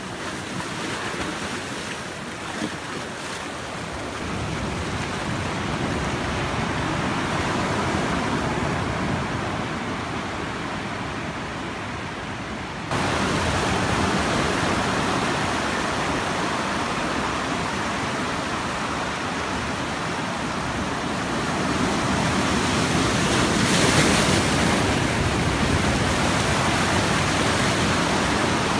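Ocean surf surging through a rock channel and washing over flat shoreline rocks: a steady rush of breaking water and foam. It jumps suddenly louder about halfway through and swells again a few seconds before the end.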